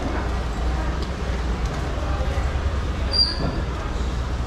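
Steady low rumble of background noise, with a brief high squeak about three seconds in.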